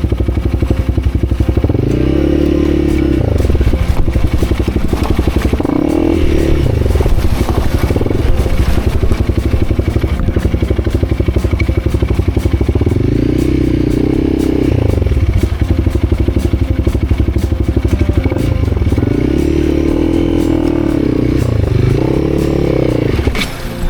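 Motorcycle engine running hard, its revs swelling and falling again and again as the throttle is opened and closed. It drops away near the end.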